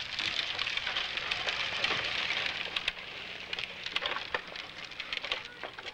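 Hard plastic wheels of a Big Wheel-style tricycle rolling on concrete: a grinding rattle with scattered clicks, loudest in the first three seconds and then fading.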